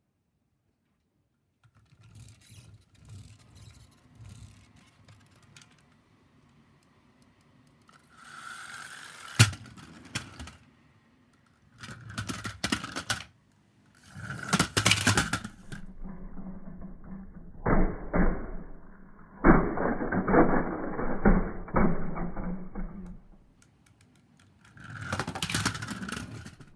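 Plastic pull-back toy car's wind-up spring motor whirring and clicking through its gears in several separate runs as it is pulled back and let go, with sharp plastic knocks in between and one loud knock about nine seconds in.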